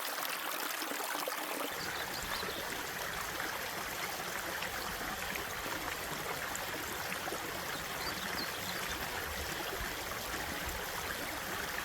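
Steady rushing of a fast-moving mountain creek running high after heavy rain. A low rumble joins about two seconds in.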